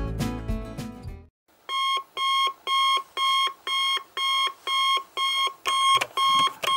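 Digital alarm clock beeping: a steady run of short, even electronic beeps, about two a second, beginning about a second and a half in. Music fades out just before the beeping starts.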